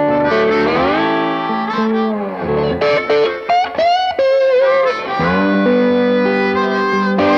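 Blues guitar music: a plucked guitar playing a lead phrase whose notes bend and slide in pitch, some held with a wavering vibrato.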